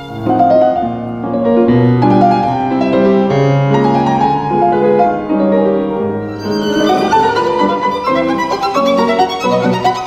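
Violin and piano playing classical music together, with the violin carrying the melody; the line moves higher about six and a half seconds in.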